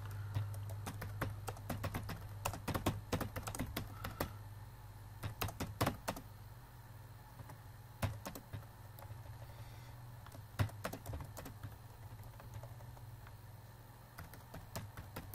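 Computer keyboard typing: quick runs of keystrokes through the first six seconds, then scattered single presses, over a steady low hum.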